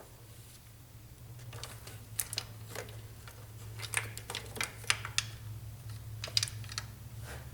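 Scattered, irregular light clicks and taps of metal parts and tools being handled while the timing chain and sprockets are lined up on the engine, over a steady low hum.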